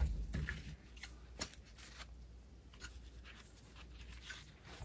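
Faint rustling and scuffing of a nylon battery hold-down strap being worked around a battery case by gloved hands, with a few light clicks.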